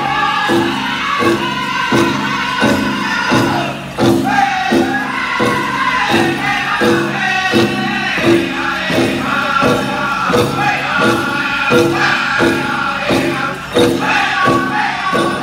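Powwow drum group singing a prairie chicken dance contest song: several men's voices in high-pitched unison over a steady, loud bass drumbeat, with the dancers' bells jingling.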